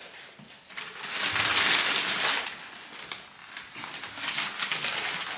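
Gift-wrapping paper rustling and crinkling as it is handled, in two long stretches, the first starting about a second in.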